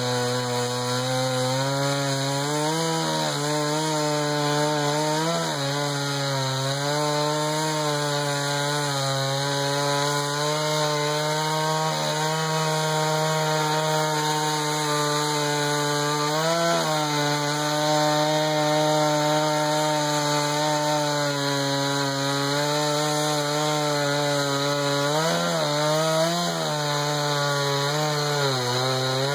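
Jonsered 2091 93 cc two-stroke chainsaw on a mini mill, running steadily at high revs while ripping lengthwise through a pine cant with a low-profile rip chain. Its pitch wavers briefly a few times as the load in the cut changes.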